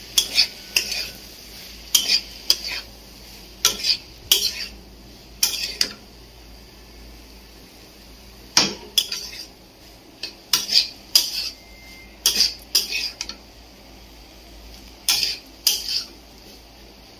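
A metal spatula scraping and clanking against a black kadai (wok) as mixed white and brown chickpeas are stirred and fried in it. The scrapes come in short groups of two or three every second or two, with a pause of a couple of seconds near the middle.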